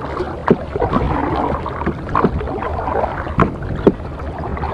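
Paddling a small outrigger canoe: water swishing and gurgling around the paddle blade and hull. A few sharp knocks stand out above it.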